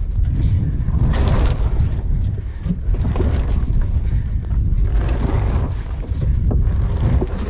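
Wind buffeting the microphone on the deck of a small sailboat, a loud, steady low rumble. A brief rustle comes about a second in.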